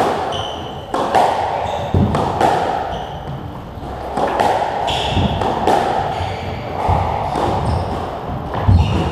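Squash rally: the ball cracking off racquets and the court walls in sharp, irregular hits about every half second to a second, echoing in the enclosed court, with short squeaks of shoes on the wooden floor.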